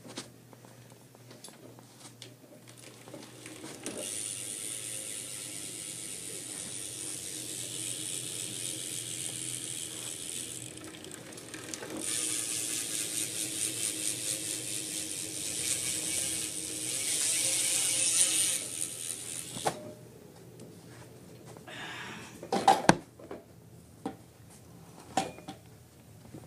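BMX Mission Function rear hub freewheeling as the rear wheel spins, its pawls ratcheting in a fast, even ticking. The wheel is spun twice, the second spin starting about twelve seconds in, and a few knocks follow near the end.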